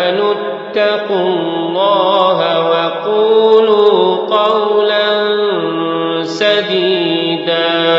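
A man reciting the Qur'an in slow, melodic tartil style: long held notes with gliding, ornamented pitch turns.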